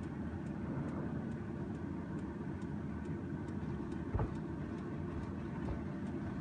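Steady low stove rumble under a pan of soy-sauce glaze reducing on the heat, with about three light ticks a second as the thickening sauce bubbles. A single low knock about four seconds in.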